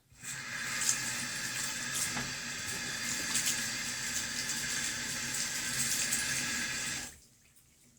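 Running water rinsing soap lather off the skin, a steady splashing rush that stops about seven seconds in.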